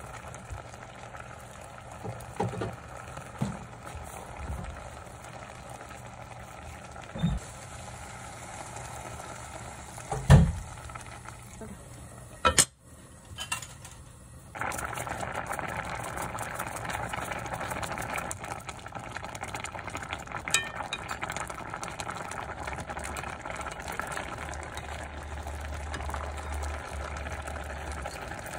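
Food cooking on a stove, with a steady hiss and several sharp knocks of a utensil against the pan in the first half, the loudest about ten seconds in. The hiss stops briefly just past the middle and comes back louder and denser for the rest.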